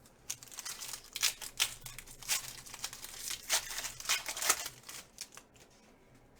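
A trading-card pack wrapper being torn open and crinkled by hand, in a run of short crackly bursts for about five seconds, dying away near the end.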